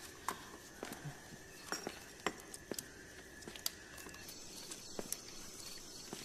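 Footsteps on twigs and leaf litter: scattered, irregular sharp clicks and crackles over faint outdoor ambience at night.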